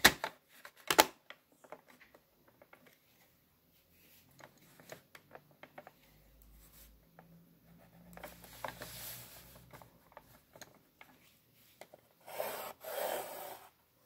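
Pencil and drafting-machine rulers working on drawing paper: two sharp clicks near the start, then soft scattered ticks and pencil scratching, and a longer rubbing sweep near the end.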